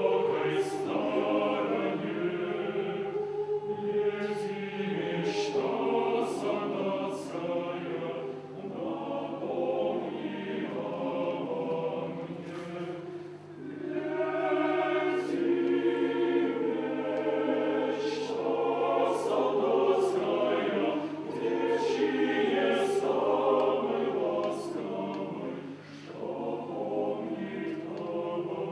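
Mixed choir singing a slow Soviet wartime song in Russian, in phrases with a short breath break about halfway through and another near the end.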